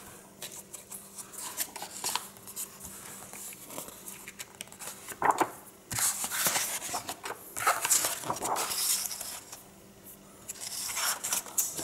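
Pages of a hardcover comic-strip book being flipped quickly, the paper rustling and sliding in several bursts, the longest in the middle, with softer rubbing of a hand over the pages between them.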